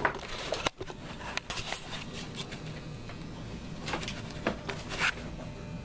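Scattered clicks, knocks and rustling from a person moving about with the camera in hand, over a faint low hum.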